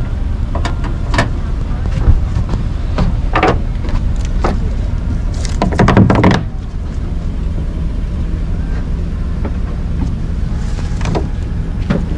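Ratchet strap buckle clicking and clattering as it is loosened from a kayak. Under it is a steady low rumble that eases a little after about six seconds.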